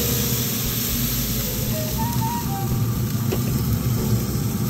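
Pit Boss pellet grill running with a steady hum from its fan and motor, under an even hiss.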